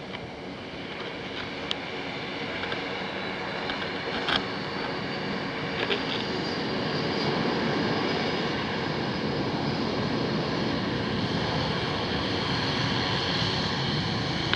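Twin rear-engined business jet's turbofans spooling up for the takeoff roll: a steady jet noise that grows louder over the first several seconds, with a faint rising whine, then holds as the jet rolls away down the runway. A few short clicks about two, four and six seconds in.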